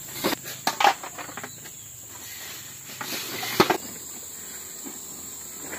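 Steady, high-pitched chirring of forest insects, with a few scattered knocks and clatters, the sharpest about three and a half seconds in.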